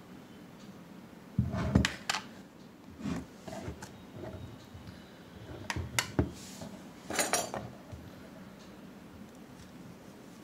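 Handling clatter of plastic ice cream tubs on a wooden table and a metal spoon clinking and scraping against them, in several short bursts, the loudest about a second and a half in.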